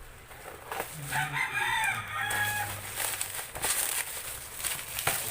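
A rooster crowing once, about a second in, followed by rustling and light clicks.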